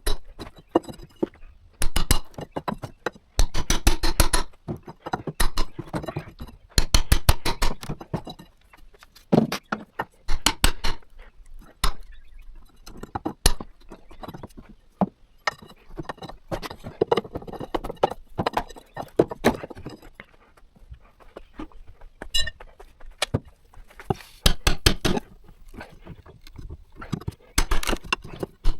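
Hand-tool work: bursts of rapid, sharp clicks and knocks with short pauses between.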